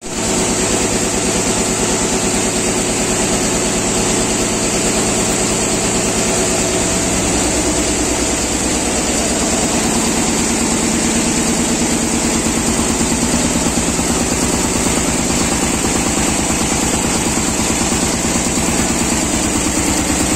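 Richpeace 64-inch multi-needle shuttle quilting machine running, its rows of needles stitching at a fast, even rhythm.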